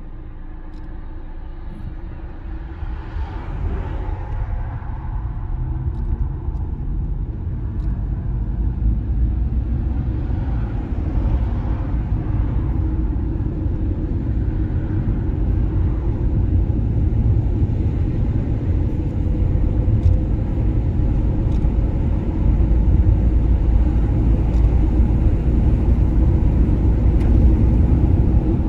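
Low, steady rumble of a car driving on the road, slowly growing louder.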